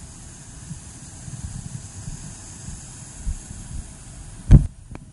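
Steady rush of a small waterfall pouring into a plunge pool. About four and a half seconds in, one loud thud and splash as a person jumps feet-first into the pool, after which the sound briefly goes dull.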